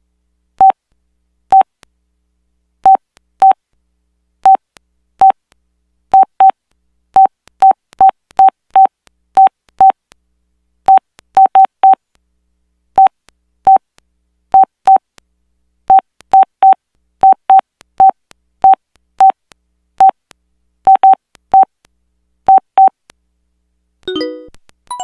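Samsung SPH-A840 phone's keypad beeps as its keys are pressed: short beeps, all at one pitch, at irregular intervals of about one to three a second. Near the end, a short, different electronic sound with a wavering pitch.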